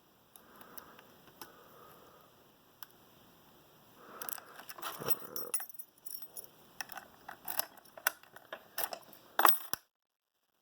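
Small metallic clicks and scrapes of lock picking on an American Lock 1165 padlock's 6-pin core, faint at first and busier from about halfway, then cutting off to dead silence near the end.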